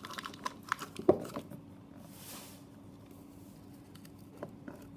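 Packaging of a Furuta chocolate egg being handled as the foil-wrapped egg is taken from its box: light crinkling and small clicks, with one sharper click about a second in and a short soft rustle a little later, then only faint ticks of handling.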